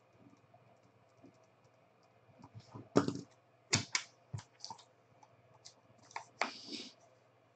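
Clicks and clacks of a graded card's hard plastic slab being handled and picked up, with a short rustle near the end as a paper sticky note is pressed onto it. The sharpest click comes about three seconds in.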